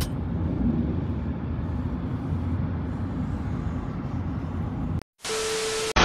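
Steady low road and engine rumble heard from inside a moving car. Near the end it cuts out into a short burst of TV-static hiss with a steady beep.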